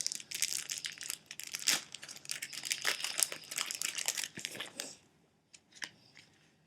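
A foil Yu-Gi-Oh booster pack wrapper being torn open and crinkled in the hands, a dense crackling rustle that stops about five seconds in, followed by a few faint light ticks.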